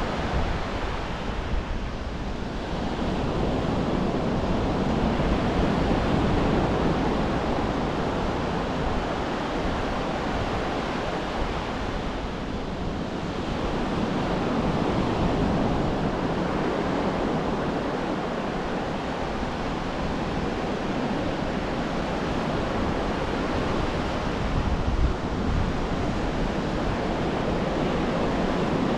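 Ocean surf washing onto a beach, a steady rush that swells and eases every several seconds, with a low wind rumble on the microphone.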